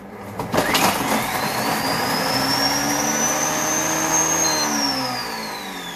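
Kogan thermo cooker's chopping blade running at speed 10 on half an onion: the motor whine rises quickly, holds high and steady with a rushing noise of the chopping, then a short beep about four and a half seconds in and the whine falls away as the motor is stopped early.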